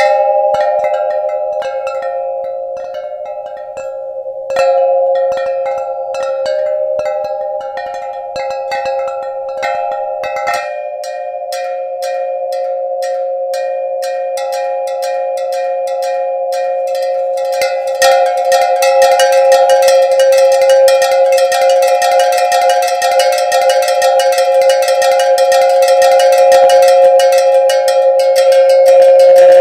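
Soundtrack music: a sustained chord of steady tones under a stream of sharp, evenly spaced clicks that turns much faster and denser about two-thirds of the way through.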